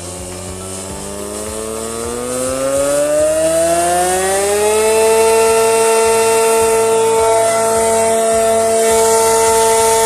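Homemade double-headed air raid siren spinning up: its wail rises steadily in pitch and grows louder for about five seconds, then holds one steady tone.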